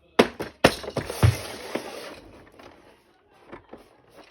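A few sharp knocks, then a burst of rustling noise that fades out over about a second and a half, and a few faint clicks near the end.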